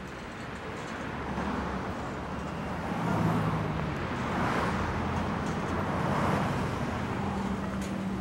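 City street traffic: cars and engines running by in a steady low rumble, swelling louder about three seconds in.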